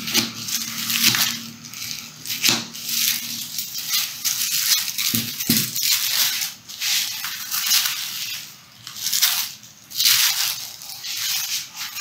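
Thin plastic bag crinkling and rustling in irregular bursts as it is cut with scissors and then folded and pressed flat by hand.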